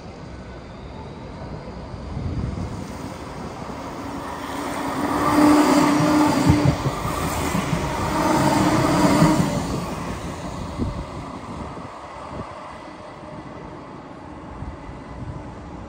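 NGT DX DD low-floor articulated tram passing close by on its rails. It grows louder for a few seconds with a steady hum over rolling rumble, then fades away.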